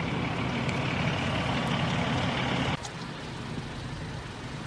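Idling motor-vehicle engines, a steady low hum. It cuts off abruptly a little before three seconds in, leaving a quieter steady engine-and-road background.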